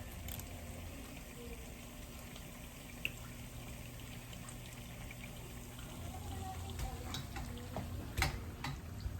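Turon (plantain and jackfruit spring rolls) frying in oil over medium heat: a steady sizzle with a few sharp clicks and pops, the loudest ones a little past eight seconds in.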